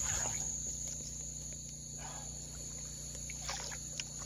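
Night insect chorus of crickets, a steady high-pitched trill, over a low steady hum, with a few faint ticks about three and a half and four seconds in.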